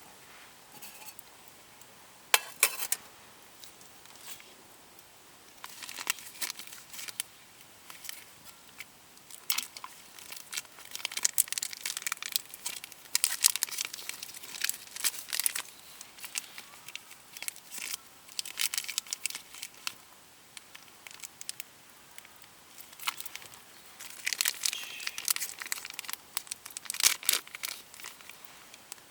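Crinkly plastic material being handled, crumpled and torn, with irregular bursts of crinkling and rustling.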